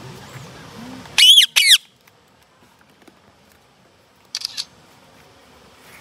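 Indian ringneck parakeets calling: two loud, high squawks in quick succession a little over a second in, each rising then falling in pitch, then a short burst of quieter high chatter about four and a half seconds in.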